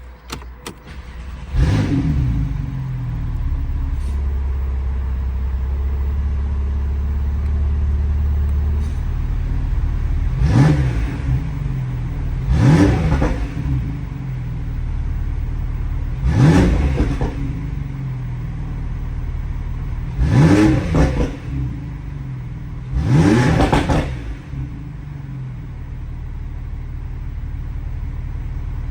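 Porsche 911 flat-six engine cranking and catching cold about a second and a half in, then running at a high cold idle that settles lower. It is revved in five short blips, each rising and falling, with crackles from the exhaust.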